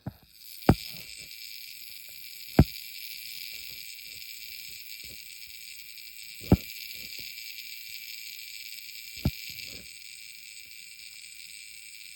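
Four sharp knocks or thumps a few seconds apart, each followed by one or two fainter ones, over a steady high hiss.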